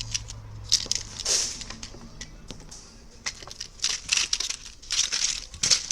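Plastic packaging crinkling in irregular bursts as it is handled, loudest near the end.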